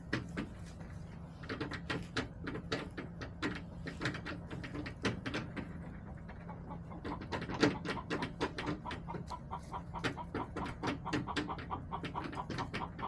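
Backyard hens, with soft clucks among a run of quick, sharp taps that grows denser from about seven seconds in, at around four or five a second.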